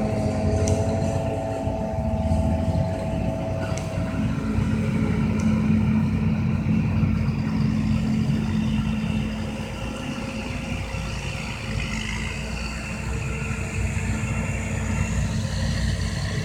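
Self-propelled forage harvester and its tractor-drawn trailer running steadily while the harvester chops maize for silage, with a high whine over the engine hum for the first few seconds.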